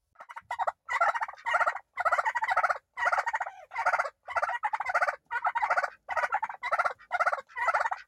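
A pair of Chocolate turkey toms gobbling, about a dozen rapid rattling calls in quick succession with only short gaps. It is their challenge to someone in their pen: they puff up and warn that they will fight.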